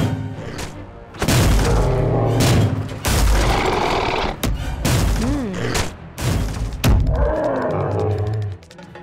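Stop-motion cartoon fight sound effects: about five heavy booms and crashes over dramatic music, with swooping pitched effects between them.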